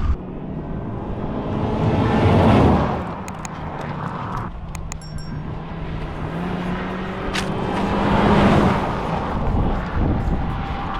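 2016 Mazda CX-5's SKYACTIV-G 2.0-litre four-cylinder running hard on track, its engine and tyre noise swelling and fading twice as it passes by, once about two seconds in and again near the end.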